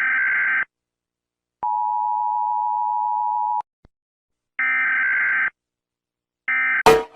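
Electronic alert tones with no rising or falling pitch. A buzzy burst about a second long, then a steady beep lasting about two seconds, then another burst and a shorter one, each separated by silence. A much louder sound cuts in right at the end.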